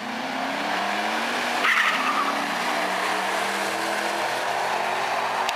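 A Ford Mustang and a third-generation Chevrolet Camaro launching side by side at full throttle down a drag strip. The engines climb in pitch and drop back at the gear changes. A short tyre squeal comes about two seconds in.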